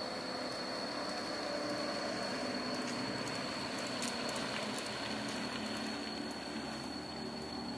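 A van's engine running as it drives slowly past, over a steady outdoor hiss with a thin high-pitched whine.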